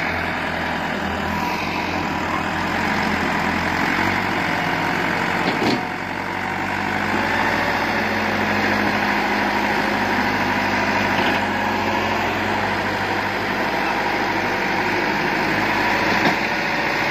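Diesel engine of heavy working machinery running steadily. Its low note shifts about four seconds in, and a single sharp knock comes near the middle.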